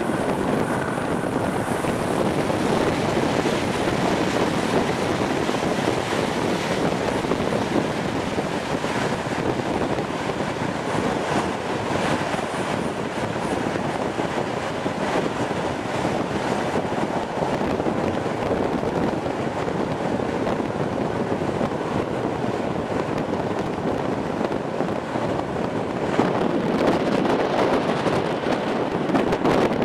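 Train in motion heard from an open coach window behind a DB V100 diesel locomotive: steady rumble of wheels on rails with wind rushing over the microphone, a little louder near the end.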